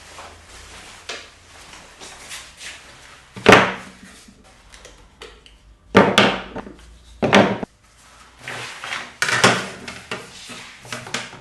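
A few sharp knocks and clatters of hard objects being handled and set down on a workbench, the louder ones coming every couple of seconds.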